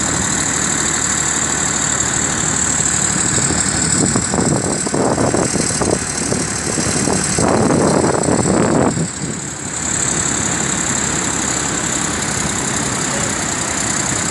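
Tractor engine running steadily under load, hauling a boat on its trailer up the beach, over a steady wash of surf and wind noise. A louder rushing swell comes between about four and nine seconds in.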